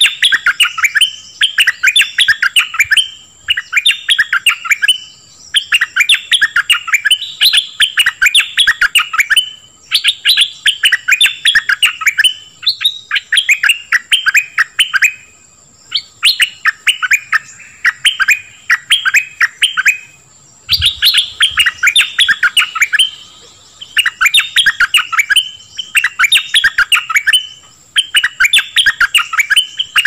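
Stripe-throated bulbul singing: loud phrases of rapid chirpy notes, each about a second long, repeated over and over with short pauses between them.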